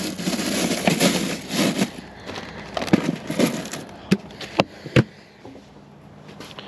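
Plastic packaging of frozen meat rustling and crinkling as it is handled in a portable fridge-freezer. This is followed by a few sharp knocks as the frozen items and lid are set down.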